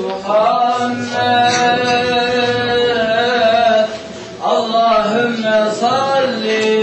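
A man singing long, drawn-out melodic phrases with wavering, ornamented notes, pausing for breath about four seconds in.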